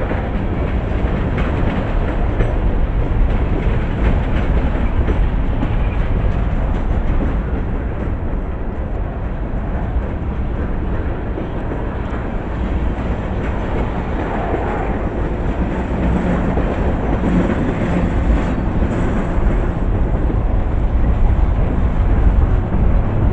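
Pan Am Railways freight train rolling past: a steady rumble with the wheels clicking over the rail joints.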